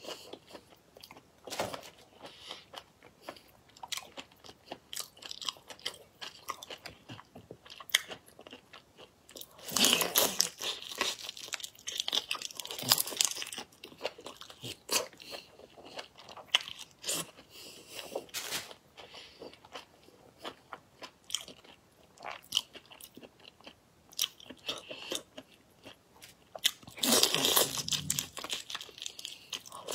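Close-miked eating of whole marinated prawns: shells cracking as they are pulled apart, with biting and chewing in quick irregular clicks. There are louder bursts of crackling about ten seconds in and again near the end.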